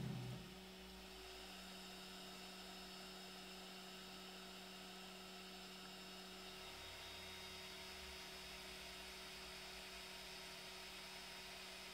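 Faint steady electrical hum from a desktop 3D printer standing idle.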